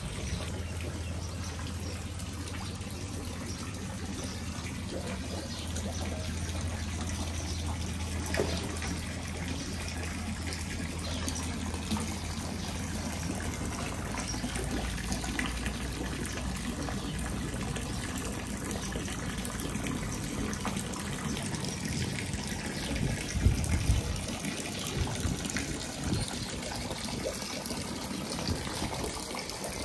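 Thin streams of water falling and splashing into a koi pond, a steady trickling splash. A low hum runs under it for about the first half, and a few low bumps come about two-thirds through.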